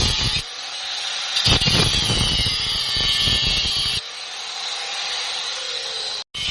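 Power tool cutting into the steel shell of a refrigerator compressor, a harsh high-pitched grinding that eases off about half a second in and again about four seconds in, biting harder again around a second and a half in.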